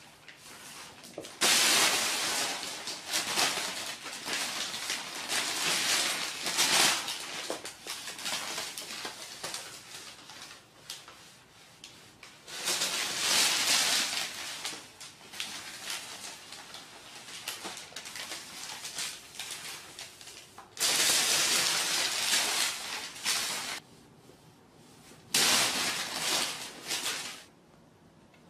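A large sheet of paper rustling and crinkling as a cat moves about in it, in several bursts of a few seconds each with quieter stretches between.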